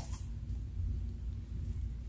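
Clear slime being slowly stretched into a thin sheet: a faint low rumble, with none of the popping or crackling of squished slime.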